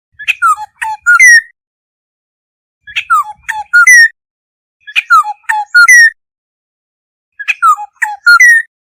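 Black-hooded oriole calling: four repeated phrases, each a quick run of short falling notes, about two seconds apart.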